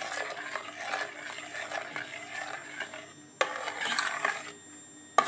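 Stirring and scraping in a saucepan of boiling crushed blackberries, working sugar in until it dissolves, with sharp clinks of the utensil on the pan about three and a half seconds in and near the end.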